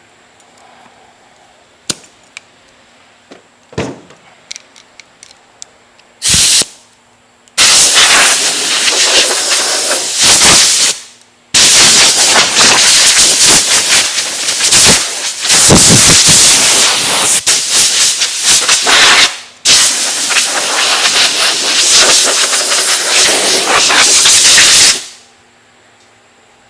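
Compressed air hissing out of an air nozzle: a short burst about six seconds in, then long, loud blasts with brief pauses, cutting off shortly before the end. A few light clicks come before it.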